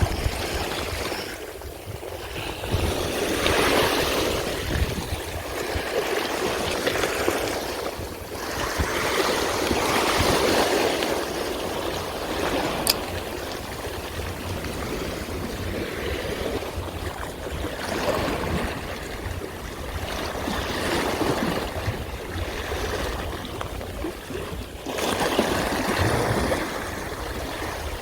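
Sea waves surging and washing over shore rocks, swelling up every few seconds, with a rough low rumble of wind on the microphone.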